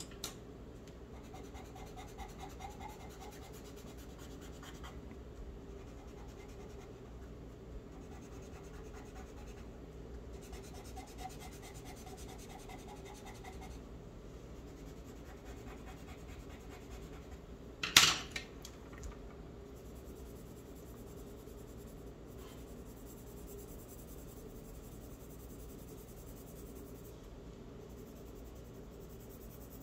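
Charcoal pencil scratching on paper in faint spells, over a low steady hum, with one sharp click partway through.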